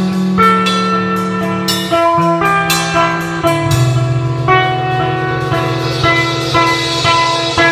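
Electric guitar and drum kit playing together live: long held guitar notes that change every second or two over steady drumming with cymbal hits.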